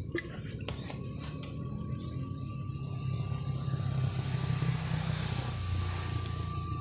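Shallow water running steadily down a small stone-walled ditch, a constant low rushing that swells slightly midway. A few light clicks sound in the first second or so.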